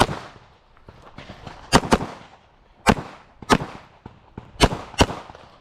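A handgun fired about six times in a course of fire, the shots sharp with a short echo after each, some coming in quick pairs and some with short pauses between.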